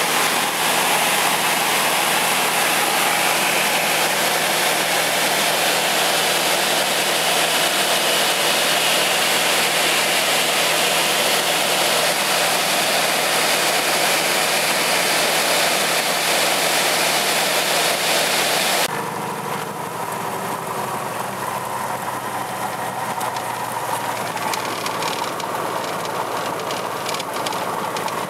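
Light aircraft's piston engine and propeller heard from inside the cockpit, a loud steady drone in flight. About 19 s in it cuts abruptly to a quieter, lower engine sound as the plane moves on the ground with the propeller still turning.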